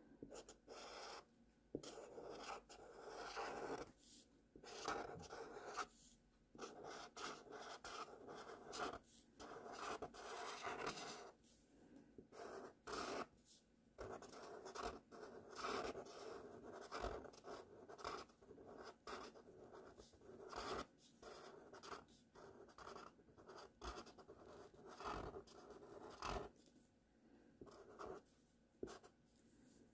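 Marker tip scratching across paper in short, irregular strokes with brief pauses between them, as cursive letters are written out by hand.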